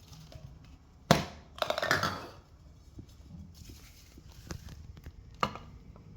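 Parts being handled during an air filter change: a sharp knock about a second in, a crackling rustle just after it, and a single click near the end.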